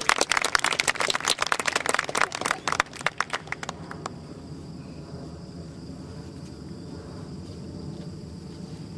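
A small audience clapping, a scattered round of applause that dies away about four seconds in. After that comes a quiet, steady outdoor background with a faint high, even tone.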